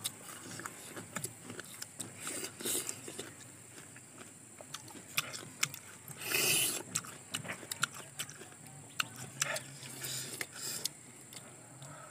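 People chewing and biting into star fruit, with scattered short crunches and wet mouth clicks, and a louder hissing burst about six seconds in.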